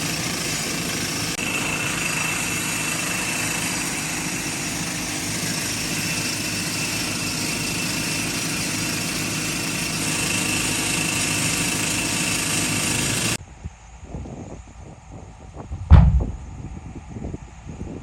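Backhoe loader's diesel engine running steadily with a high whine over it; it cuts off abruptly about two-thirds through, giving way to quieter scattered knocks and one loud thump near the end.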